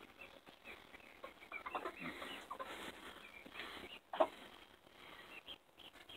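Light Brahma and Black Sexlink chickens clucking softly in short scattered calls as they settle on the roost at night, with one louder, sharper sound about four seconds in.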